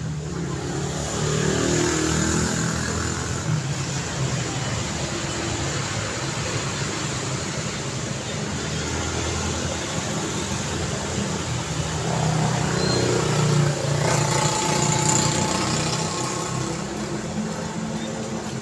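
Daytime road traffic: vehicle engines running and accelerating past over steady tyre and road noise. It grows louder about two seconds in, and again from about twelve to fifteen seconds in as nearer vehicles pass.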